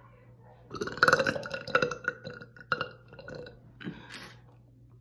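A long, crackling burp lasting about two seconds, followed by two shorter, quieter ones; the belching of gas from drinking carbonated Diet Coke.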